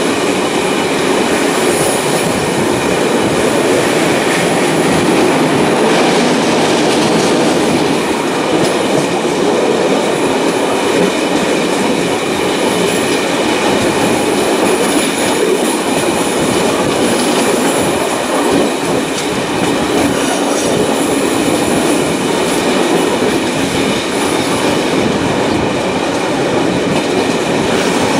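Passenger train running on the rails, heard from an open coach window: a steady rolling noise of wheels on track.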